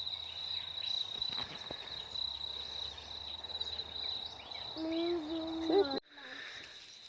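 Insects trilling steadily at a high pitch, with a fast pulsing texture, until the sound cuts off abruptly about six seconds in. Just before the cut a person's voice sounds a short held note.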